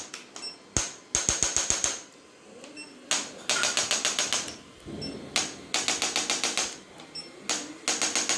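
A handheld electric chiropractic adjusting instrument firing rapid clicks, about ten a second, in four bursts of roughly a second each, with short pauses between them.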